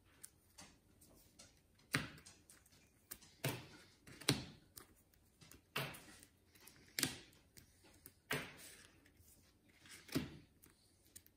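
Stacks of game cards being set down and slid into piles on a wooden tabletop: irregular soft taps and short scrapes every second or so.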